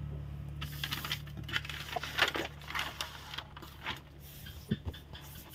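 Sheet of brown kraft pattern paper rustling and crackling in short strokes as hands fold it and press it flat on a wooden table, over a steady low hum, with a couple of light taps near the end.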